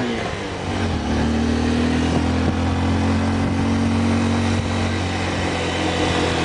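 Motorcycle engine running at a steady pace under way, with a rush of wind and road noise over it.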